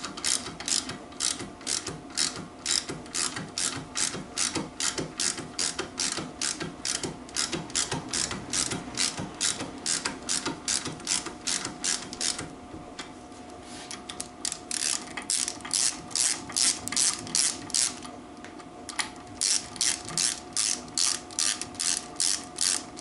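Socket ratchet clicking steadily, about three clicks a second, as the nuts on the 3/8 UNF crankshaft bolts are run down by hand before torquing. The clicking pauses briefly twice, a little past halfway and again about three-quarters through.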